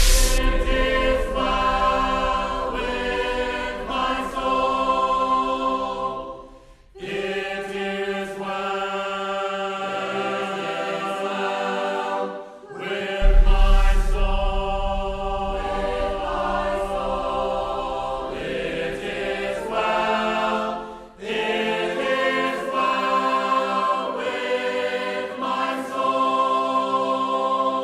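Choir singing a cappella in long held phrases with short breaks between them, over a deep low hit at the start and again about halfway through.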